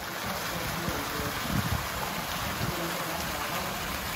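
Courtyard fountain water splashing and trickling steadily.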